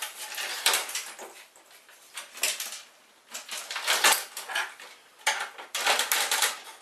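Hands working a ribbon cable loose inside a dismantled inkjet printer: irregular plastic clicks, scrapes and rattles, with a short lull in the middle.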